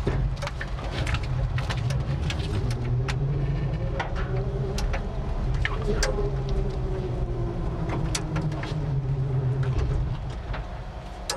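Electric-converted 1960s Ford F-100 pickup driving off with no engine running: a low rumble of tyres and chassis, many sharp rattles and clicks from the old body, and a faint whine that rises and falls in the middle.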